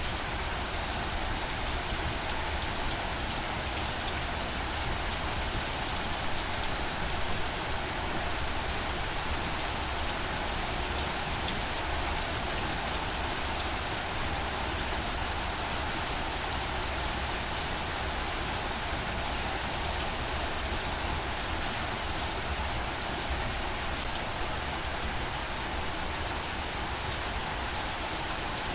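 Steady rain falling and pattering on a surface, an even hiss with fine drops ticking.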